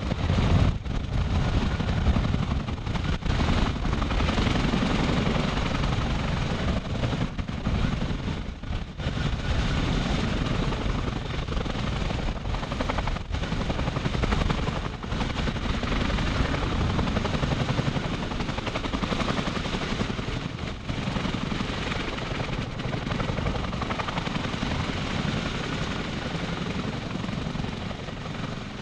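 Boeing CH-47 Chinook tandem-rotor helicopter running on the ground with both rotors turning: a steady, dense rotor and turbine noise with a fast pulsing beat from the blades.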